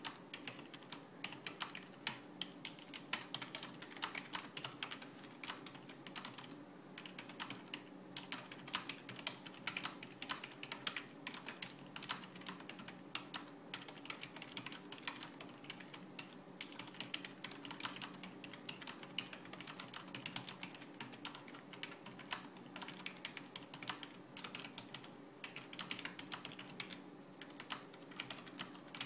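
Continuous touch-typing on a Microsoft Digital Media Keyboard 3000, a rubber-dome keyboard: a fast, irregular patter of soft key presses with brief pauses between words.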